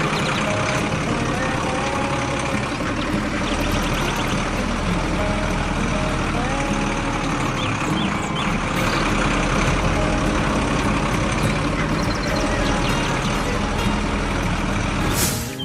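A motor vehicle's engine running steadily in a dense, continuous rumble, with a few short gliding tones over it.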